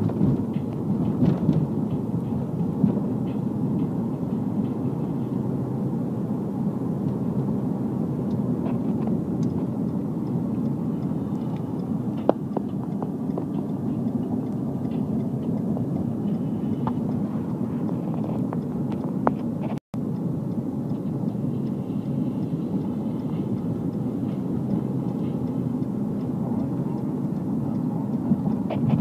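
Steady low rumble of a car driving, its engine and tyres heard from inside the cabin, with a few faint clicks. The sound cuts out completely for a split second about two-thirds of the way through.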